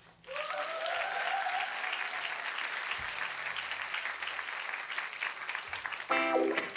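Concert audience applause breaking out suddenly, with cheering voices over the clapping in the first couple of seconds, then steady clapping.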